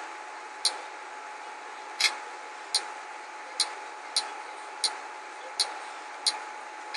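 About ten short clicks, one every second or less, as a passcode is tapped into the Nabi tablet's touchscreen keypad, over a steady faint hum.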